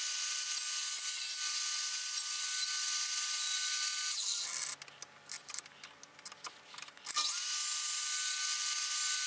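Electric miter saw running with a steady high whine as its blade is plunged to a set depth to cut a shallow dado across a maple board. It runs for about four and a half seconds, stops for about two and a half seconds with a few small knocks, then starts again for a second pass near the end.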